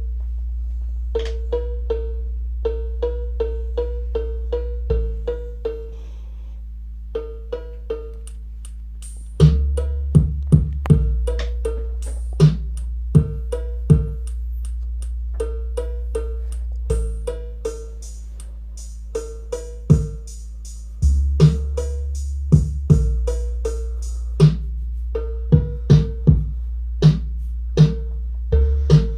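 Electronic drum-machine beat built around a rhythmic cowbell pattern, short pitched clanks over held synth bass notes that change every few seconds. Heavier drum hits join about a third of the way in, and a fast high hi-hat pattern plays for a few seconds past the middle.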